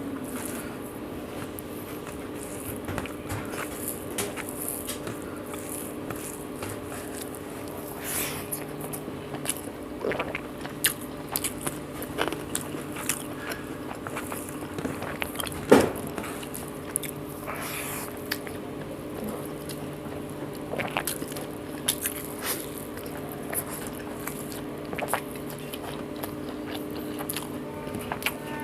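Close-up eating sounds of a meal of rice, egg omelette and coriander chutney: chewing and biting with many irregular wet smacks and crisp mouth clicks, one sharper click about halfway through. A steady faint hum runs underneath.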